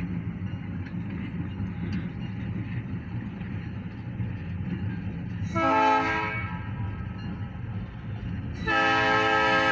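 Diesel switcher locomotives running past with a steady low engine rumble. The locomotive horn gives a short blast about five and a half seconds in, then a longer blast starting near the end, heard from inside a car.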